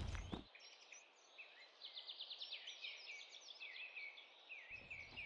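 A louder noise cuts off about half a second in, leaving faint birdsong over a soft hiss: several birds chirping, with short gliding calls and a quick trill.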